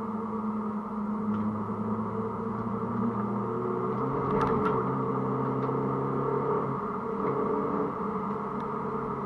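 Mini Cooper S (R53) four-cylinder engine heard from inside the car while it is driven on track, a steady drone whose pitch holds for long stretches and steps a couple of times. A few short clicks about four and a half seconds in.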